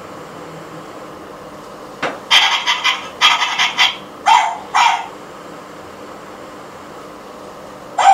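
Battery-powered toy terrier playing its recorded dog sounds: a click about two seconds in, then a run of small-dog barks and two short yelps, stopping about five seconds in. Another short yelp comes right at the end.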